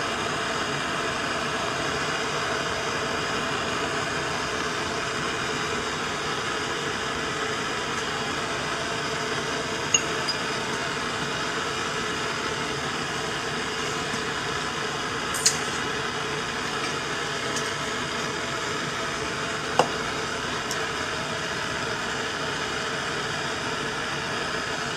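Canister-mounted gas torch burning with a steady hiss while a silver ring is annealed in its flame. Three faint clicks come about 10, 15 and 20 seconds in.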